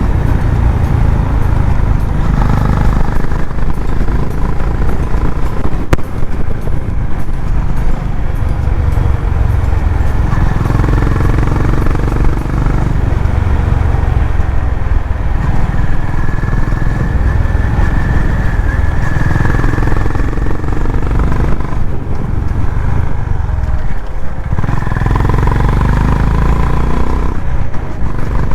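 Honda CB350RS single-cylinder engine and exhaust running steadily while riding, mixed with road and wind noise.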